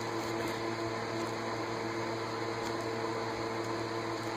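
Electric fan running: a steady, even whir with a faint hum.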